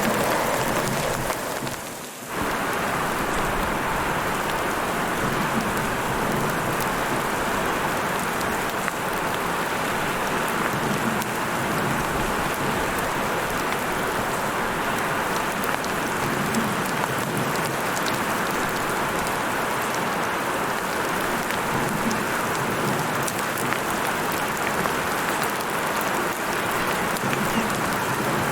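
Heavy rain falling steadily, an even hiss of many drops, with a short dip in level about two seconds in.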